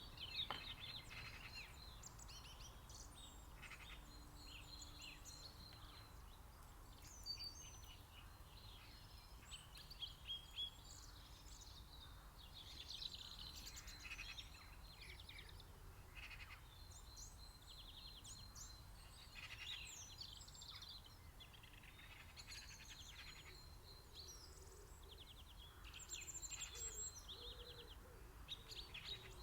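Several songbirds singing and calling at once, a spring chorus of overlapping chirps, trills and warbled phrases, faint over a steady low rumble.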